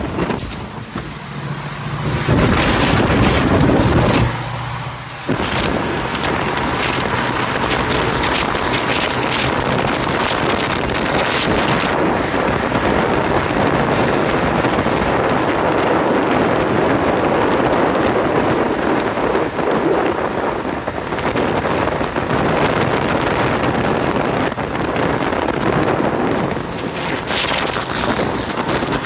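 Car driving at highway speed with wind rushing over the microphone and steady road noise, and a louder spell of engine hum about two to four seconds in.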